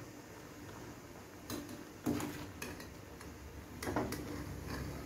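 Metal utensils knocking and clinking against a small stainless steel saucepan as boiling water spinach is stirred and lifted. There are about half a dozen sharp clinks, the loudest about two seconds in.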